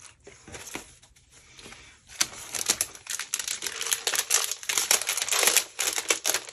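A few faint ticks of handling, then from about two seconds in a dense, continuous crinkling and crackling of plastic packaging being handled.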